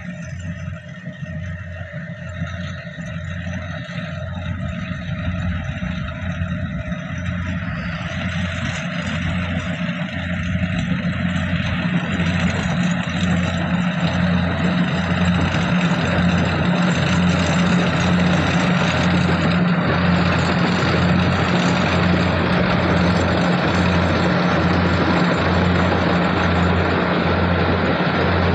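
Kubota DC104 combine harvester running, a steady low engine hum with a regular pulse of about one beat a second. From about eight to twelve seconds in it grows louder as a wider mechanical clatter fills in, then holds steady.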